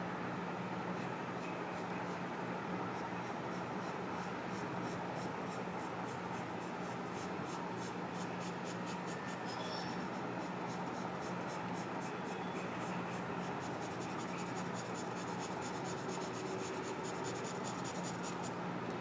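Pencil scratching on drawing paper in quick, repeated short strokes as a dark shadow is shaded in. The strokes grow denser after the first few seconds and stop just before the end, over a steady low hum.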